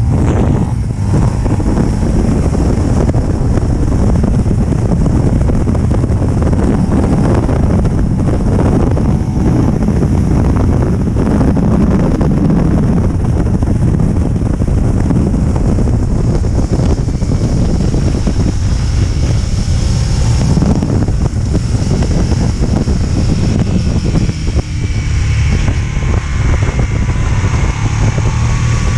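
Motorcycle engine running at road speed, mostly buried under heavy wind buffeting on the camera microphone. The engine note climbs near the end.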